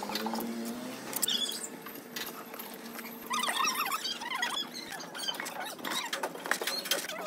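Steel trowel scraping and pressing wet sand-cement mortar onto a column capital and scooping it from a bucket. The trowel gives light clicks throughout, with short squeaky scrapes near the start and again around halfway.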